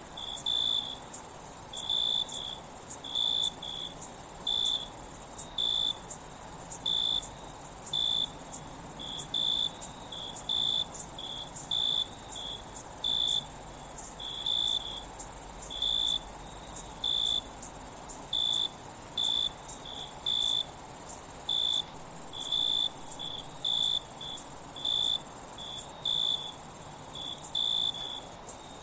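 Night insect chorus of crickets: a continuous high-pitched trill with short, clear chirps about one to two a second layered over it. The trill breaks off briefly now and then.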